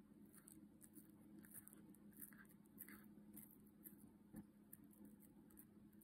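Cat gnawing and chewing on a homemade dried tuna stick: faint, irregular crunches and clicks, several a second, with one sharper crack about four seconds in, over a steady low hum.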